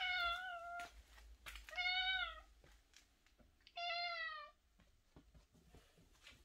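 Domestic cat meowing three times, each meow under a second long and about two seconds apart, part of its repeated crying while it wanders about.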